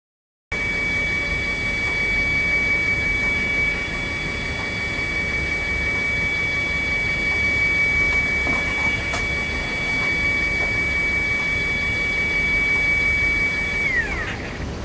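Volumetric 3D printer's lab apparatus running: a steady high whine over an even machine hiss, with one sharp click about nine seconds in. Near the end the whine glides down in pitch and stops.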